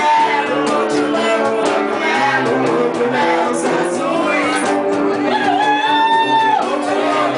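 Live amateur band: women singing into microphones over guitars, including a nylon-string acoustic guitar. In the second half, one voice holds a long high note.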